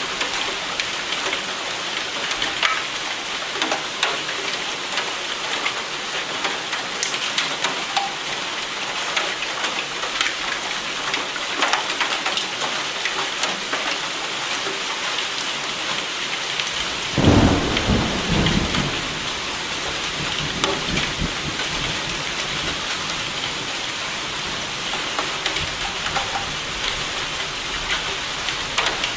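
Steady rain falling, with close individual drops striking. About seventeen seconds in a single thunderclap breaks in, the loudest sound, and rumbles away over two to three seconds.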